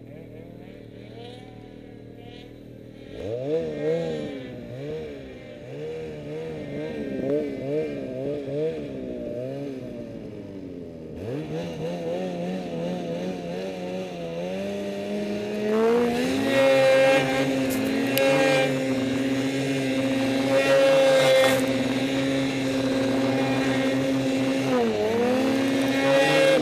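Snowmobile engine running: about three seconds in it starts with revs rising and falling unevenly, then from about halfway it climbs and holds high revs while riding, with a brief drop in revs near the end.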